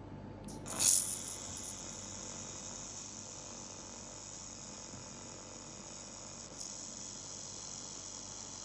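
A 2000 W handheld laser welder with wire feeder welding 4 mm mild steel: a short loud burst about a second in as the weld strikes, then a steady sizzling hiss as the bead is laid.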